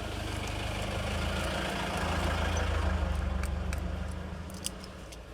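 A motor vehicle's engine running and passing by: a low hum that grows louder, peaks about halfway through, then fades. A few small clicks come near the end.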